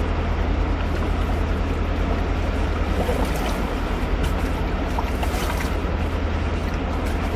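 River water rushing steadily over rapids, with a steady low rumble underneath and a few faint ticks.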